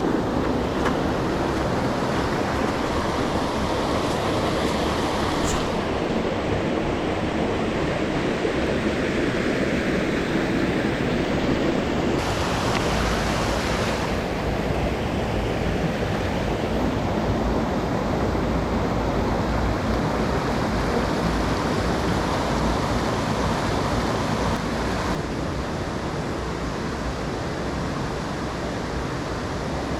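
Rushing water of a mountain stream, a loud steady noise whose tone shifts abruptly a few times.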